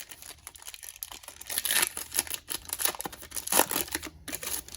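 A trading-card pack wrapper being torn open and crinkled in the hands, in irregular crackling bursts, loudest in the middle.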